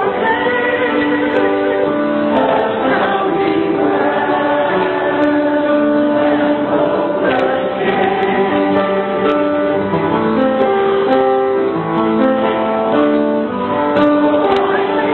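Church choir singing in parts with piano accompaniment, the voices holding long notes.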